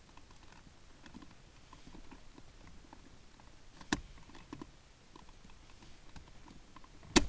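Hands handling cables and plastic trim: scattered light taps and rustling, with a sharp click about four seconds in and a louder, sharper click near the end.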